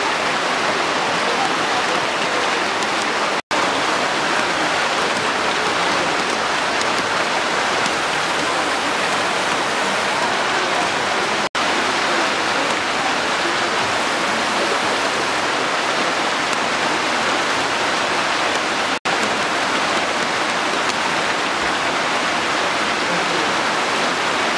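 Muddy flash-flood water from a seasonal torrent rushing down a street over rocks and gravel, mixed with steady rain: a dense, even rushing noise. It cuts out for a split second three times.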